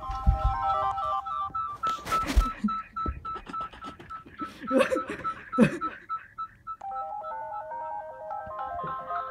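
LINE app call ringtone: a looping melody of short electronic beeps that plays throughout and changes its pattern about two-thirds of the way in. Loud knocks and rustles of the phone being handled come near the start and around the middle.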